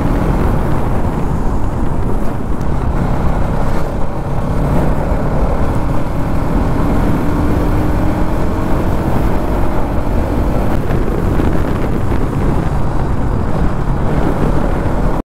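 Bajaj Pulsar NS200's single-cylinder engine running under way, over a heavy low rumble of wind and road noise. The engine's pitch climbs slowly through the middle as the bike gathers speed.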